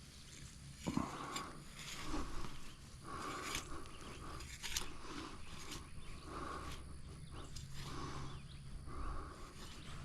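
A man breathing hard and heaving from physical exertion, heavy breaths repeating about once a second. A few short clicks or knocks come through, the sharpest about a second in.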